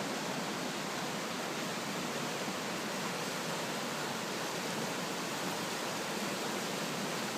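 Swollen river rushing steadily over rocks after the flood, a constant even roar of water.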